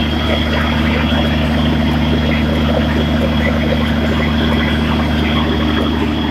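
Caterpillar diesel generator set's engine running steadily: an even low drone with a thin high whine above it.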